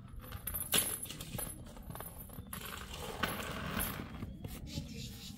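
Metal dog chain clinking and rattling as it is handled and fastened, in irregular clinks, the loudest just under a second in.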